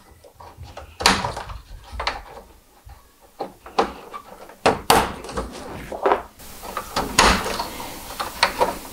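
LED grille lights being pushed into a Toyota Tacoma TRD Pro plastic grille, snapping into place: several separate sharp plastic clicks and knocks.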